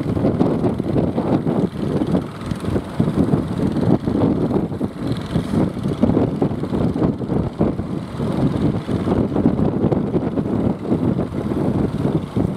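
Wind buffeting the microphone, mixed with the engines of jukung outrigger fishing boats running under way.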